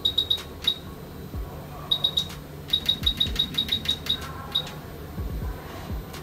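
A run of short, high-pitched electronic beeps from repair bench equipment, about a dozen in quick clusters with the fastest run in the middle, mixed with light clicks and a few dull low knocks.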